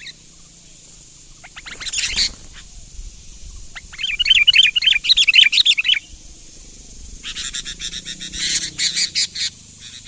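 Sooty-headed bulbul (kutilang) singing. A short harsh burst comes first, then about two seconds of rapid warbling notes, then a scratchy chattering run that starts about seven seconds in.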